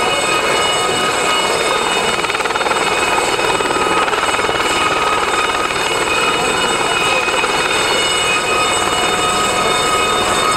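Aérospatiale Gazelle helicopter hovering close by: a steady, loud rush of rotor and turbine noise with a high whine made of several steady tones, typical of the Gazelle's shrouded Fenestron tail rotor and turboshaft engine.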